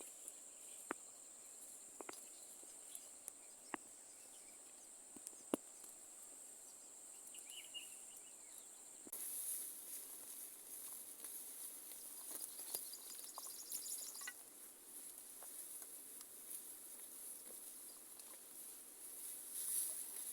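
A steady high-pitched drone of insects, joined about nine seconds in by a louder, higher insect chorus, with a few sharp clicks in the first half.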